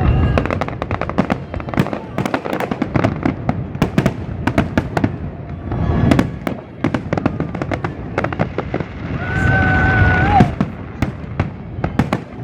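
Fireworks going off in rapid succession: dense crackling and sharp pops, with a whistle holding one pitch for about a second near the end.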